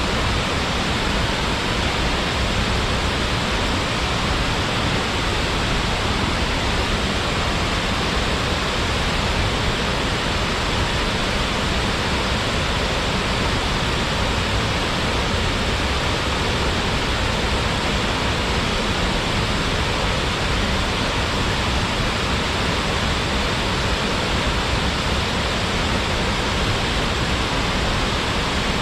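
Waterfall: water falling and splashing into its pool, making a steady, even rush with no change.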